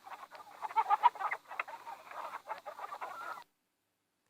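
Chickens clucking in quick, overlapping short calls, cutting off abruptly near the end.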